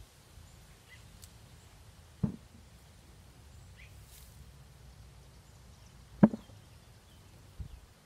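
Hands digging through loose garden soil to unearth potatoes, with two short, dull thuds about two and six seconds in and a softer one near the end.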